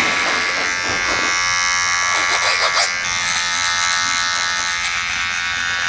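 Cordless hair trimmer buzzing steadily while trimming neck hair at the nape.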